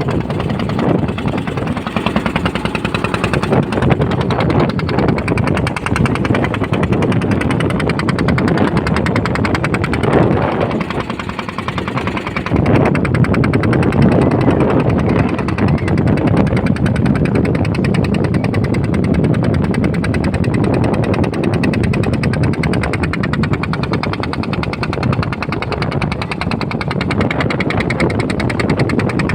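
Ferry boat's engine running steadily with a fast, even knocking beat, easing briefly about eleven seconds in.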